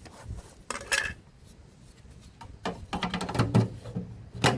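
Clicks and clatter of plastic and metal parts being handled and fitted back onto a washing machine during reassembly: a few separate knocks about a second in, a cluster around three seconds in, and one sharp click near the end.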